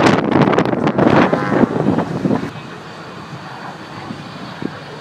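Aircraft noise at an air show mixed with heavy wind buffeting on the microphone. It drops suddenly about halfway through to a quieter steady rumble.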